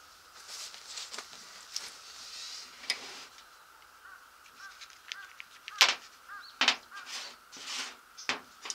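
Recoil starter parts being handled on a table: scattered clicks and light knocks of the starter pulley and tools being picked up and set down, with one sharp knock just past the middle.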